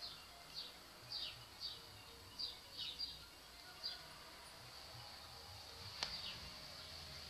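Faint, high, short chirps, each falling in pitch, repeating about twice a second; they stop about four seconds in. About six seconds in comes a single sharp click.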